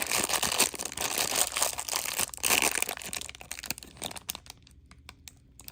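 A small blind-box mystery bag crinkling and crackling as it is opened and handled by hand, dying down to a few faint rustles about four seconds in.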